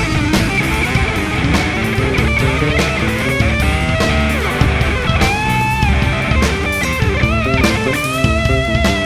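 Rock band playing live: a lead electric guitar line with sliding bends and vibrato over drums and bass.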